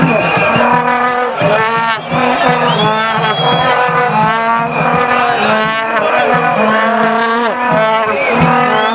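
Plastic stadium horns (vuvuzelas) blaring steady held low notes, with a crowd of football fans singing and shouting over them.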